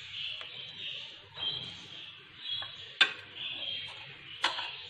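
A spoon tapping against a glass baking dish: one sharp click about three seconds in and another near the end. Under it, a faint high chirp repeats about twice a second.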